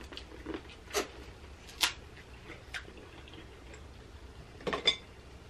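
Close-miked eating sounds: a handful of sharp wet clicks and smacks from chewing and from crab shell being picked apart by hand, at irregular intervals, the loudest a little under two seconds in, with a quick cluster near the end.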